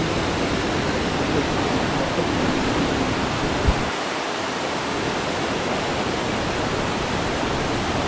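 Steady rushing of a tall waterfall carrying across the gorge, with a brief low thump about three and a half seconds in.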